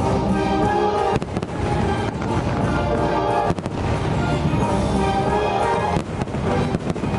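Fireworks going off in a string of sharp bangs, over music.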